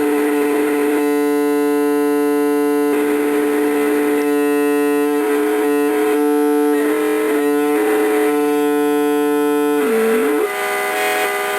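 Homemade six-oscillator drone machine putting out a steady electronic drone of two held buzzing tones, its overtones shifting every second or two. The pitch wavers around the middle and dips briefly and comes back about ten seconds in.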